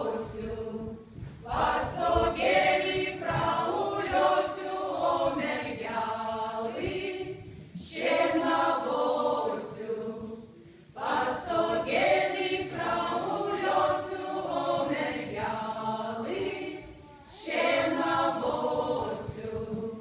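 Lithuanian women's folk ensemble singing unaccompanied in unison, in phrases a few seconds long with short breaths between.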